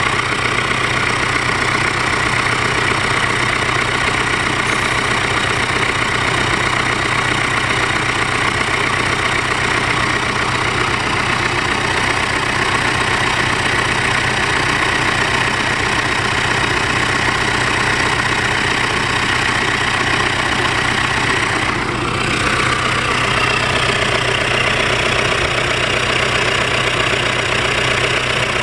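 Diesel engine running bare on the ground, out of its vehicle, idling steadily on a test run after a rebuild in which it was re-sleeved following a seizure.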